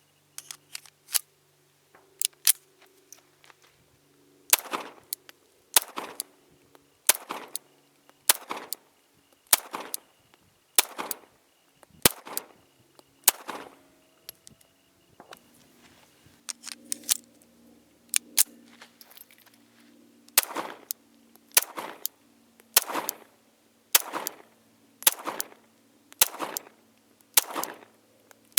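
Astra 600/43 pistol firing 9mm Luger rounds, single shots about one a second in two strings of about eight, with a pause of several seconds between the strings.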